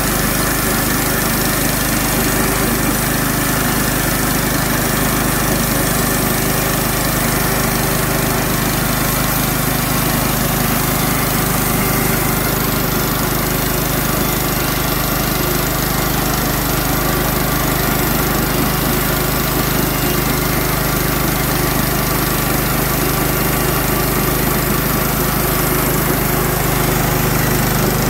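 Clarke model 50 portable bandsaw mill running steadily under load, its engine driving the band blade through a white pine log.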